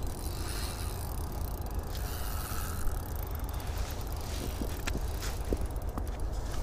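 Wind buffeting the microphone, with a spinning reel on an ice fishing rod being cranked and a few light clicks from the reel near the end, while a big lake trout is played.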